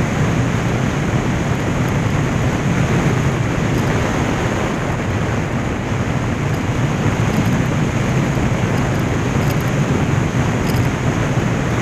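Steady rush of wind on the microphone over the drone of a motorcycle riding at road speed.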